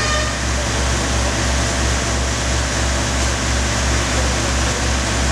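Fire engine running steadily at the scene, a low engine rumble that throbs gently and evenly under a constant hiss.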